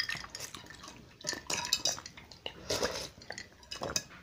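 Metal spoon and fork clinking and scraping against a ceramic soup bowl, with a handful of short sharp clinks spread through.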